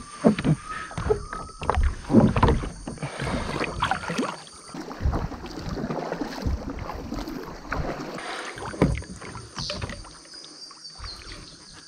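A kayak being moved through the water: irregular paddle splashes and swishes, with knocks and bumps against the plastic hull.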